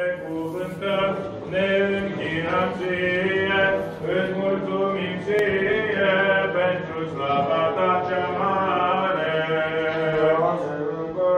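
Orthodox church chant sung by male voices: a slow melismatic melody over a steady held drone note.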